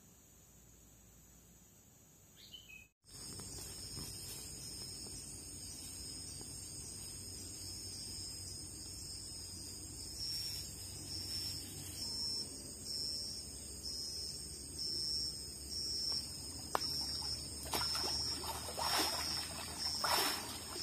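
After about three seconds of near silence, forest insects start a steady high-pitched chirring that pulses evenly, over a background of outdoor noise. Toward the end a few louder irregular noises come in over it.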